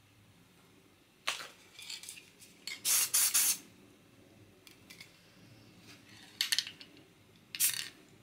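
Aerosol spray-paint can hissing in short bursts, about five in all, the longest and loudest about three seconds in.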